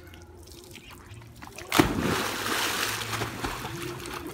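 A husky plunging into a swimming pool: one big splash about two seconds in, then water churning and splashing as the dog paddles.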